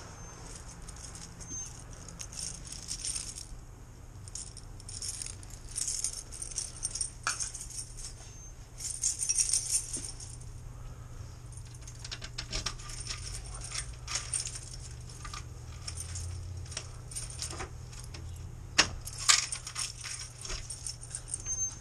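A ring of keys jangling, with a key clicking in a glass door's lock, in irregular bursts of jingling over a steady low hum.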